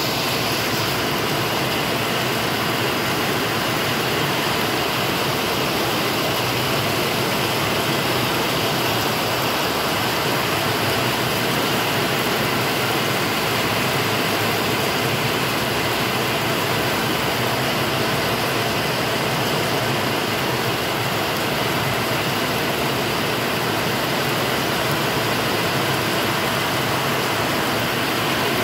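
Heavy rain falling steadily, splashing on a wet concrete terrace floor, an even hiss that does not change.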